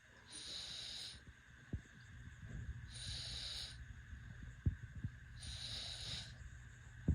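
A sleeping baby snoring: three hissy, wheezy breaths, each about a second long, coming about every two and a half seconds. A few brief low thumps fall between them.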